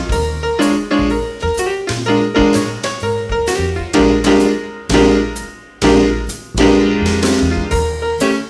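Live instrumental jazz: piano chords in short, punchy phrases over bass, with a brief break a little over halfway through.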